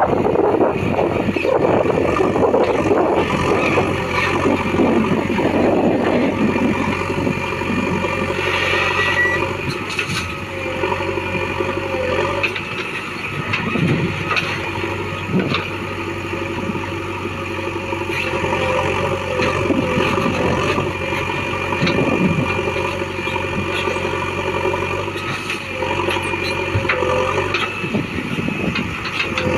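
Heavy diesel engines of earth-moving machinery running steadily, busier and noisier for the first few seconds, with occasional short knocks.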